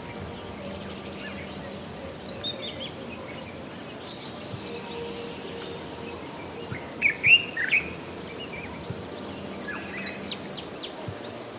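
Wild birds chirping and calling in short, quick, high notes. There are scattered clusters about two to three seconds in, a louder burst of calls about seven seconds in and more near the end, over a steady background hiss.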